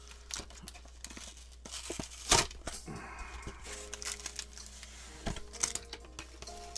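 Blister pack of trading-card booster packs being torn open, its packaging crinkling and crackling in irregular rustles, with a sharp rip about two seconds in.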